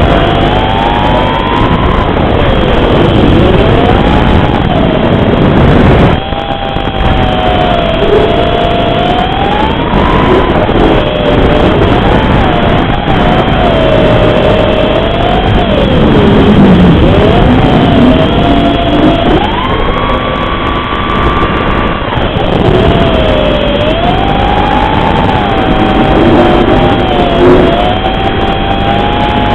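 Motors and tri-blade props of a 5-inch FPV racing quadcopter (Cobra 2204 2300kv motors, Dalprop 5040 three-blade props), their whine rising and falling with the throttle through flips and loops. The pitch drops away briefly about six seconds in and is held high and steady for a couple of seconds past the two-thirds mark.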